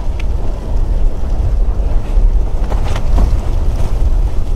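Strong wind buffeting the microphone, a loud, heavy rumble without a steady tone. A couple of brief sharper sounds come about three seconds in.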